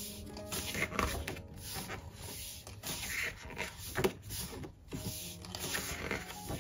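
Paper pages of a thick album photo book being turned and handled, a few soft flips and rustles. Faint background music with held notes runs underneath.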